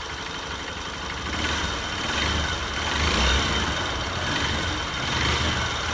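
Honda Bros 150 single-cylinder four-stroke engine running after a rebuild, warming up; it gets louder about a second and a half in, then swells and eases. It runs quiet, the earlier engine noise gone after the decarbonising and new gaskets.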